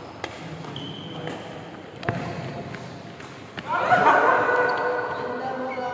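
Badminton rally in a large hall: a few sharp cracks of racket strings striking the shuttlecock, with footfalls and a brief shoe squeak on the court. A little after halfway, several voices call out loudly over one another.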